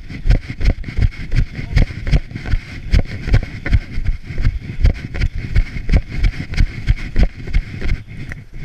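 A trail runner's footfalls on a forest path, picked up by a camera worn on the body: regular heavy thuds about three a second over a steady rushing hiss.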